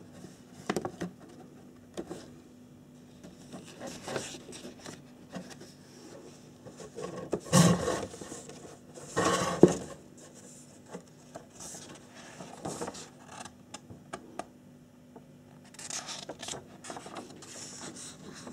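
A paper instruction booklet and a cardboard kit box being handled, rubbing and scraping with scattered small knocks. Two louder scrapes come around the middle.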